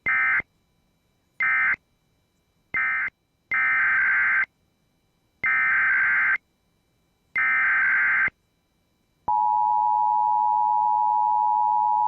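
Emergency Alert System SAME data tones: three short bursts of the end-of-message code, then three longer bursts of a SAME header, each about a second apart, a shrill warbling buzz. About three seconds before the end, the steady two-tone EAS attention signal starts.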